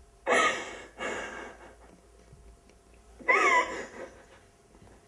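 High-pitched whimpering cries with gasping breath, three in a row. Each rises and falls in pitch, the first and last loudest.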